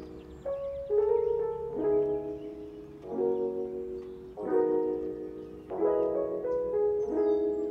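Background music: a soft piano track, with a new chord struck about every second and a quarter.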